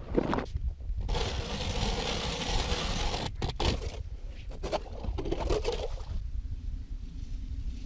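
Hand ice auger drilling through lake ice: a steady rasping scrape as the blades cut and turn, broken by a few sharp clicks about three seconds in. The scraping stops about six seconds in, leaving a low wind rumble on the microphone.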